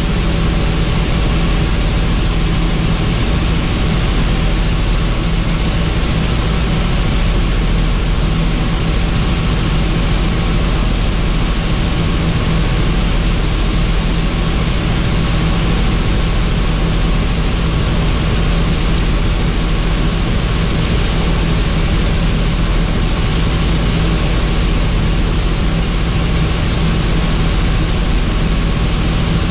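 Helicopter in flight, its turbine engine and rotor making a loud, steady drone that does not change.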